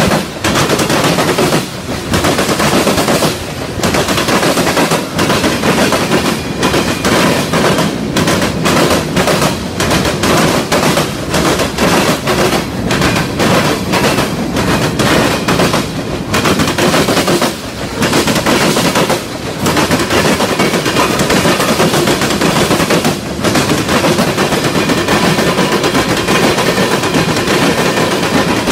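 Freight cars rolling past at close range: a loud, continuous rattle and clatter of steel wheels on the rails, with brief dips in loudness every second or two.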